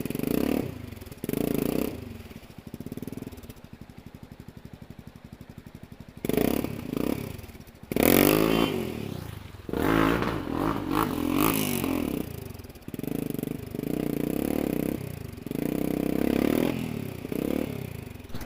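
Adventure motorcycle engine idling and then revved in repeated bursts, pitch rising and falling, as the bike is worked slowly over rocks.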